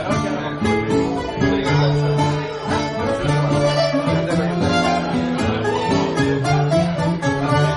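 Old Greek tune played on plucked string instruments, with a bowed string instrument, a violin, joining in.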